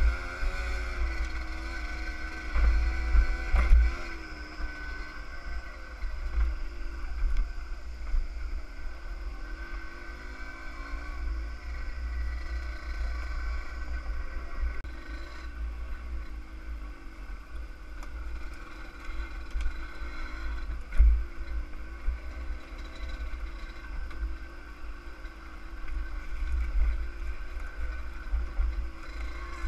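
Yamaha DT50R's 50 cc two-stroke single-cylinder engine running under way, its pitch wavering up and down with the throttle, with wind buffeting the microphone.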